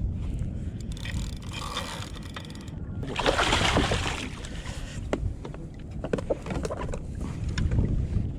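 A spotted mackerel being landed at a kayak, splashing and thrashing, with one loud splash about three seconds in and then scattered knocks against the kayak. Steady wind and water rumble lies under it all.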